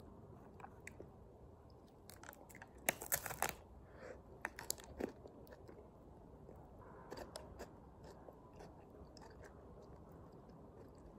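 Plastic film wrapper of a Häagen-Dazs Crispy Sandwich ice cream being peeled open by hand: faint, scattered crinkles and crackles, with a louder cluster about three seconds in.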